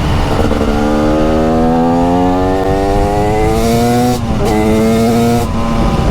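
TM SMR 300 supermoto's 300cc two-stroke engine pulling under load, its pitch climbing steadily for about three seconds. About four seconds in it drops briefly at a gear change, holds steady, then falls as the throttle is closed near the end.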